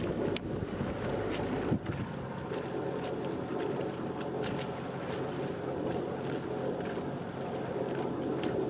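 Wind buffeting the microphone over the wash of water along a moving boat's hull, with a steady low drone underneath. A single knock comes about two seconds in.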